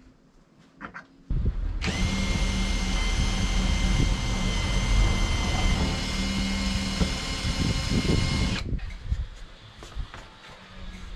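A power drill runs at one steady speed for about seven seconds. It starts a little over a second in and stops abruptly.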